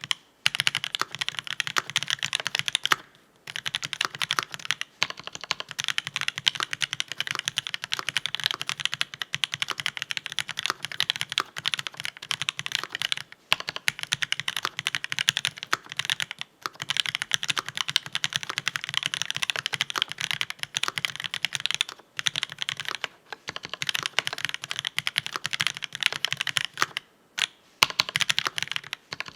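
Continuous typing on a mechanical keyboard with GMK Bleached ABS keycaps, Marshmallow switches and a brass plate: a fast, even clatter of keystrokes broken by a few brief pauses.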